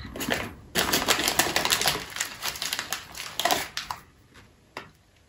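Hands rummaging in a bag of Non Stop candy-coated chocolates: the bag crinkles and the hard-shelled pieces rattle in dense clicking for about three seconds, then stops, with one short click near the end.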